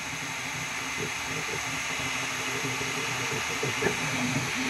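FlashForge Adventurer 5M 3D printer running a print: a steady fan hiss with the stepper motors humming at short, shifting pitches as the print head moves.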